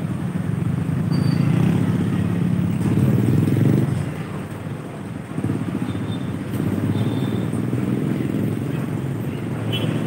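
Engines running with a low, steady rumble that drops off about four seconds in and picks up again about a second later.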